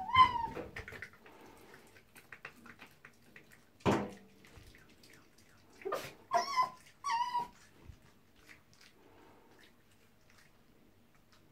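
Red fox giving high, whining squeals as she guards a bar of soap: one at the start and two in quick succession about six to seven seconds in. A short harsh sound about four seconds in, and faint clicks and scuffles between the calls.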